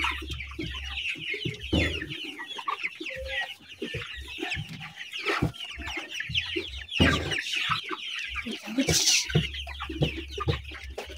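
Many young chickens clucking and calling over one another without a break, with a few thumps and rustles of a bird being handled.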